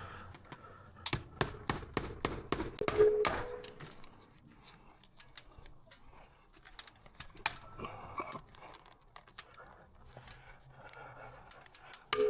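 A quick run of sharp clicks and rattles, busiest from about one to three and a half seconds in with a brief metallic ring at its end, then sparser clicking and handling noises.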